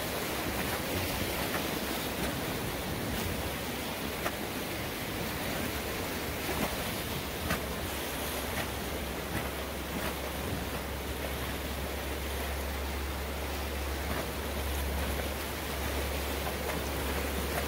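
Whitewater rapids rushing steadily, with a constant low rumble underneath and a few faint knocks.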